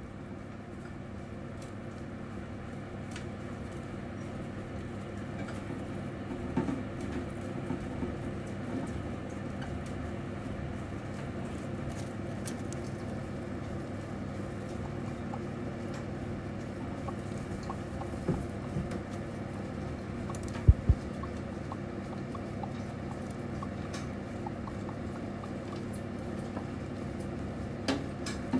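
Multimammate mice eating somen noodles and scrabbling in dry coconut-fibre and seed bedding: a steady rustle with scattered small clicks and taps. Two sharp knocks come close together about two-thirds of the way through.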